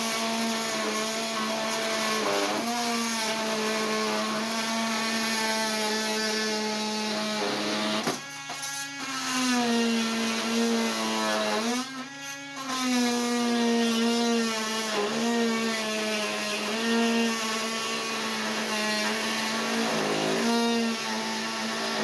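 Oscillating multi-tool running at full speed, its Diablo carbide blade cutting through a 3/8-inch steel lag bolt: a steady high buzz whose pitch sags and wavers as the blade bites. It briefly drops out twice, about 8 and 12 seconds in.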